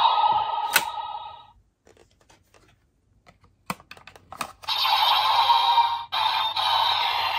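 Electronic sound effects from a DX EX Gotcha Saber toy sword's small speaker: one effect fades out about a second and a half in, a few sharp plastic clicks follow as the toy is handled, and a new loud tinny effect starts about two-thirds of the way through, with a brief break just after.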